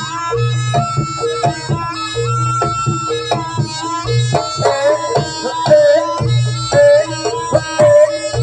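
Traditional music led by hand drums, with strong low drum strokes about once a second under a busy pitched melody.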